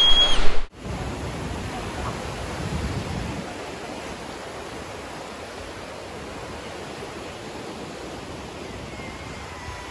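Sea surf: waves breaking and washing up on a sandy shore, a steady rushing noise that swells a little in the first few seconds. It begins after an abrupt cut, less than a second in, from a short, louder stretch of sound.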